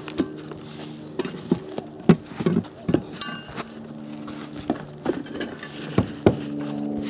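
Scattered sharp knocks and clinks of hand tools and pieces being handled as an old skylight is taken off a roof. Under them runs a steady low drone that grows louder near the end.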